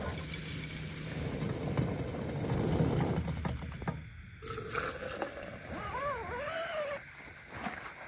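Small canister gas camp stove burning under a stainless steel pot of water for coffee: a steady low rushing hiss from the flame for the first few seconds, which then drops away. A short wavering whine comes later.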